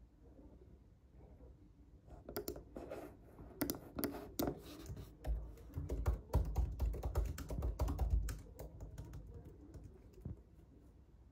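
Typing on a MacBook laptop keyboard: quick irregular key clicks that start about two seconds in and die away near the end. A low rumble runs under the keystrokes from about halfway through for a few seconds.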